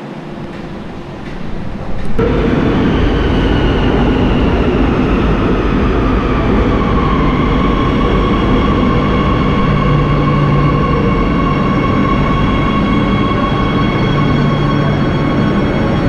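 Madrid Metro train pulling into the platform. Its loud running rumble comes in suddenly about two seconds in, with a high whine that falls in pitch over the next few seconds as the train slows, then holds steady as it comes to a stop.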